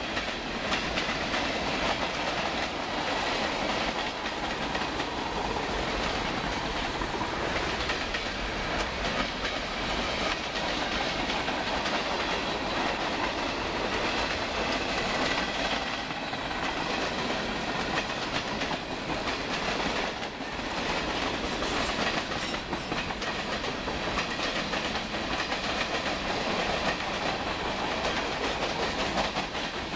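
Freight train cars rolling past, with a steady, continuous clatter of wheels over the rails.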